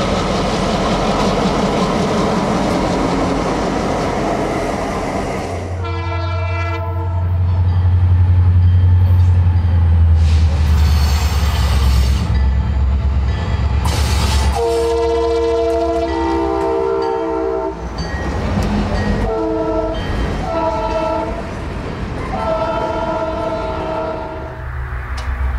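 Diesel passenger train rolling past with a steady rushing noise. After that, a Wheeling & Lake Erie diesel locomotive approaches working hard, with a deep engine rumble, and sounds its multi-chime horn in several blasts, the longest lasting over two seconds. Near the end, loaded freight cars roll past.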